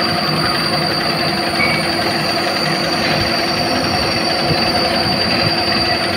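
Steady machine-shop noise: machinery running with a continuous whine over a dense rushing noise.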